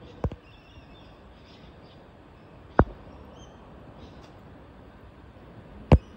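Three sharp thumps, about three seconds apart, over a steady outdoor background hiss, with a few faint, high bird chirps.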